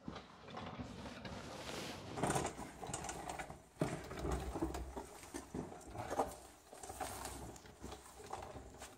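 Scuffling and handling noise as a person shifts about under a pickup truck: clothing rubbing and scraping on the floor, with scattered light knocks and clicks as the camera is moved around.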